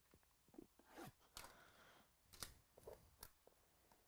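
Faint handling noise: fingers scratching and picking at the plastic shrink wrap on a cardboard card box, a few soft scratches and clicks.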